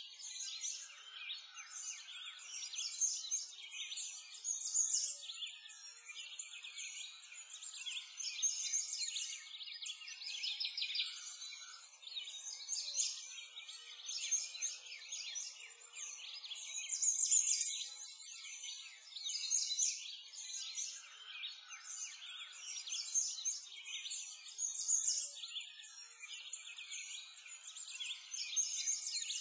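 Many small birds chirping continuously in a dense chorus of short, high chirps.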